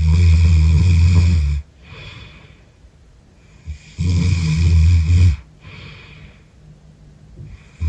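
A heavily pregnant woman snoring heavily in her sleep: two long, low snores about four seconds apart, each followed by a quieter breath out, with a third snore starting right at the end. This is late-pregnancy snoring, which she puts down to the weight she has gained around her neck and throat.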